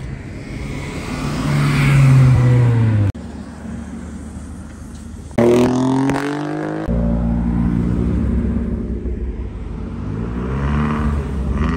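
Cars driving past one after another, their engines revving. In the first few seconds one engine's pitch falls. About halfway through a coupe revs hard with rising pitch as it pulls away, and near the end another engine climbs in pitch as it comes up. Sudden cuts separate each car.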